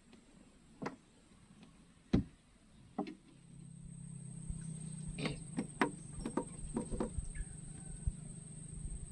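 Sharp knocks of gear against a small wooden sampan, the loudest about two seconds in, then a steady low hum that sets in about three seconds in, with a quick run of clicks and knocks over it.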